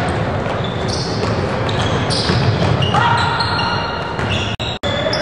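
Basketball game sounds in a gym: the ball bouncing on the hardwood court and players moving, with voices echoing around the hall. The sound drops out twice, very briefly, near the end.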